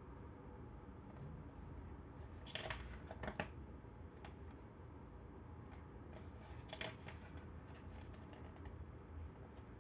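Paper pages of a CD booklet being turned by hand: short crackly rustles about two and a half seconds in and again near seven seconds, with light handling noise between.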